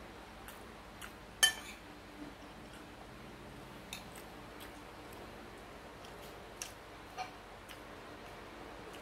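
A metal spoon clinking and scraping against a plate while scooping fried rice, a few separate clicks, the sharpest about a second and a half in. A steady hiss of rain underneath.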